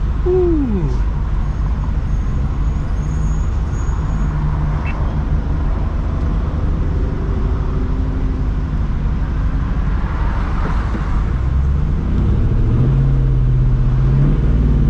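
A 2004 Mustang GT's 4.6-litre V8 running through a new Borla ATAK cat-back exhaust with a catless X-pipe, heard from inside the cabin. It idles with a steady low exhaust note, and about twelve seconds in the revs come up slightly and it grows a little louder.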